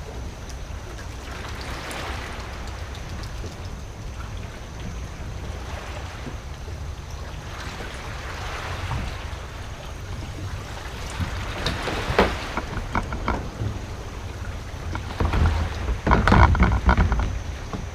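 Steady wind and water noise around a small boat at sea, with a few knocks partway through and a loud run of knocks and splashes in the last few seconds.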